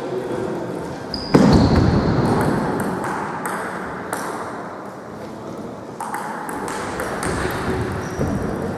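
Table tennis ball clicking back and forth between paddles and table in a rally, about two hits a second. A loud sudden rush of noise starts about a second and a half in and fades over the next few seconds.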